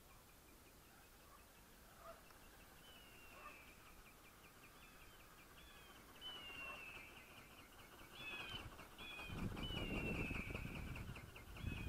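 Birds calling faintly: a steady run of short, high chirps with longer falling whistles in between. From about nine seconds in, a low rumbling noise comes in and grows louder.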